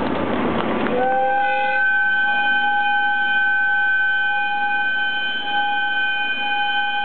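JR Kyushu ED76 electric locomotive sounding one long, steady whistle blast as it pulls out of the station. The blast begins about a second in and lasts to the end, over a background of train and platform noise.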